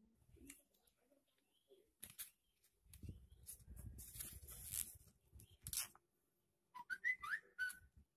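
Chopsticks and fingers stirring and picking at fried noodles in a styrofoam takeaway box: scattered clicks and a couple of seconds of rustling and scraping. Near the end come a few short, high chirping glides, like whistled notes.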